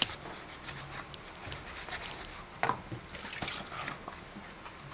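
Soapy hands rubbing and scrubbing the small cups of a spice box at a sink: soft wet rubbing, with a couple of light knocks about two and a half and three and a half seconds in.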